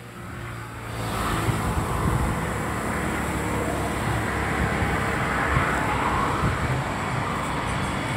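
Road traffic passing on a highway, a steady rush of engines and tyres that swells about a second in.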